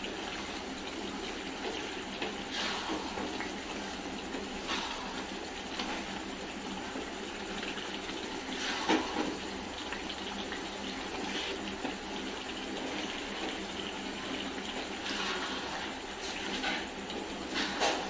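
Thick mutton masala sizzling in its separated oil in a steel kadai. A wooden spatula scrapes and stirs through it every few seconds, the strongest stroke about nine seconds in.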